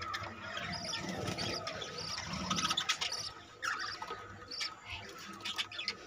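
Budgerigars chirping and chattering, a run of short, high chirps repeated again and again.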